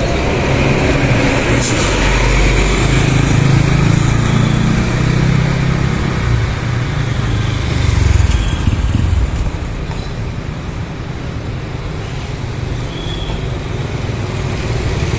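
Scania K410CB tri-axle coaches driving past one after another, their diesel engines running and tyres on the road. The deep engine rumble is loudest in the first nine seconds as the nearest coach goes by, then drops to a lower, steady traffic sound as the next coaches approach.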